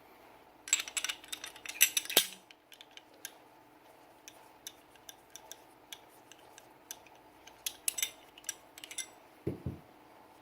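Sig Sauer P320 pistol handled during cleaning, its parts giving sharp metallic clicks and clinks. A rapid run of them comes about a second in, lighter scattered clicks follow, and a duller knock comes near the end.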